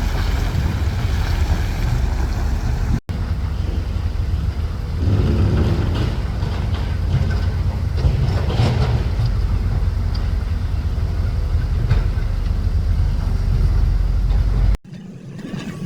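Heavy earthmoving machinery running, a deep steady diesel rumble with wind buffeting the microphone. It is broken by two abrupt cuts, one about three seconds in and one near the end.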